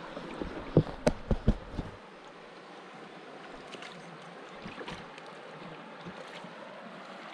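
Shallow hill stream flowing steadily, with a few sharp knocks in the first two seconds.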